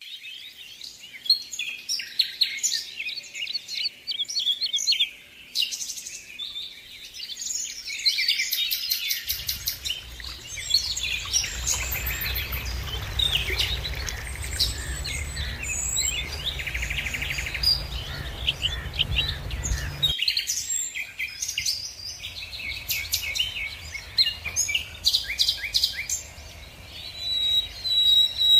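Many small birds chirping and singing in quick, overlapping calls. From about a third of the way in until about two-thirds through, a low rushing noise runs beneath them, starting and stopping abruptly.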